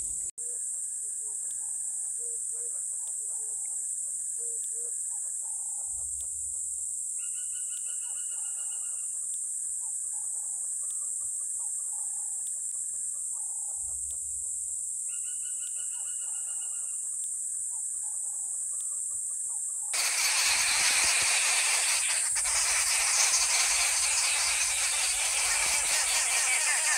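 Hot-weather bushveld chorus: a steady high insect drone, with birds calling over it, a few low hoots in the first seconds and two bursts of trilling calls. About twenty seconds in it jumps louder into a harsher, denser buzzing.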